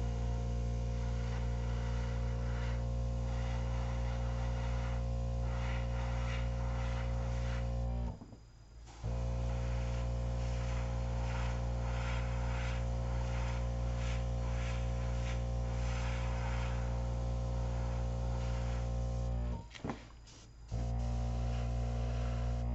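Small airbrush compressor running with a steady hum and the hiss of air through the airbrush spraying black paint. It cuts out briefly twice, about 8 seconds in and just before 20 seconds, then starts again.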